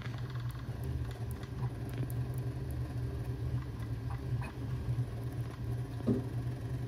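Bambu Lab A1 Mini 3D printer running a print: a steady low fan hum with the stepper motors whirring and ticking as the toolhead and bed move in short quick strokes. There is a slightly sharper click about six seconds in.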